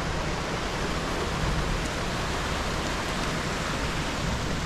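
Steady rushing water of a mountain stream: an even hiss with a low rumble under it.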